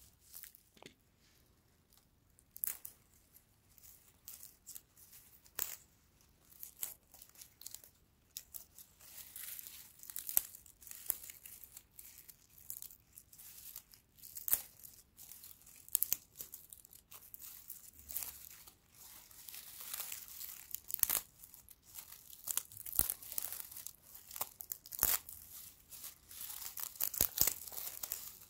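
Dry straw crackling and rustling in the fingers as stalks are bent, pulled apart and split lengthwise, in many small irregular snaps. The crackles are sparse at first and come thicker from about eight seconds in.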